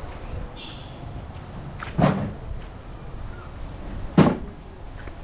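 Two sharp thumps about two seconds apart, the first about two seconds in, over low background noise.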